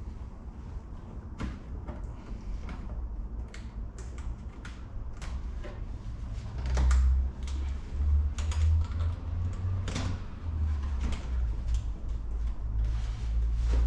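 Irregular clicks, taps and knocks, as of hard parts being handled and fitted, over a low rumble that grows louder about halfway through.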